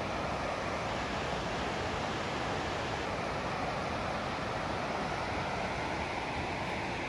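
Steady rushing of water, an even hiss that holds without a break.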